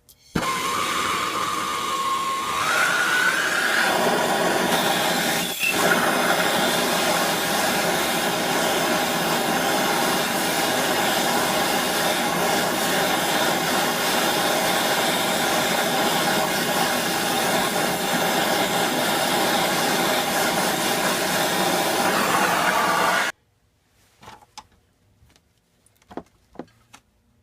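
Handheld gas torch burning with a steady hiss while heating a rusted-on pulley on a small engine's crankshaft to loosen it. It lights with a click just after the start, and the hiss cuts off suddenly a few seconds before the end as the torch is shut off.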